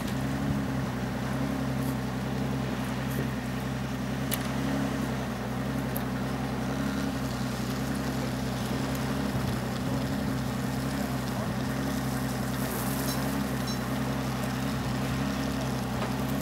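A steady low motor hum runs throughout, with a few faint clicks over it.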